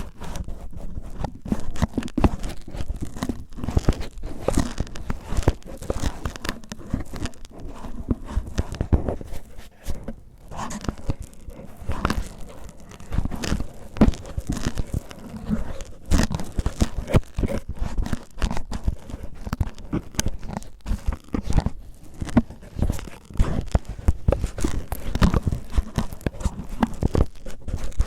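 Cellophane crinkled and rubbed close against the microphone, ASMR ear-cleaning style: a dense, irregular crackling made of many sharp crackles.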